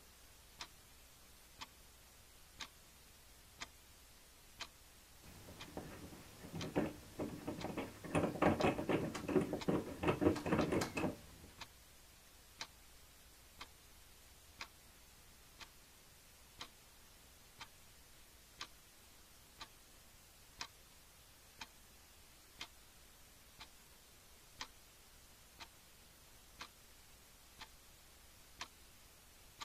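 Wall clock ticking steadily, about once a second. From about five to eleven seconds in, a louder dense rustling covers it, fitting a duvet being pushed back as someone sits up in bed.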